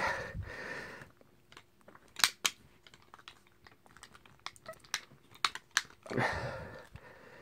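Snap catches of a Winchester Model 12 BB gun clicking as the two halves of its shell are pressed together by hand. Two sharp clicks come close together a little over two seconds in, followed by fainter clicks and handling noise.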